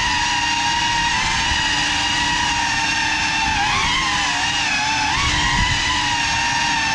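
Brushless motors of a GEPRC CineLog35 ducted FPV cinewhoop whining steadily in flight, the pitch rising briefly twice with throttle in the second half.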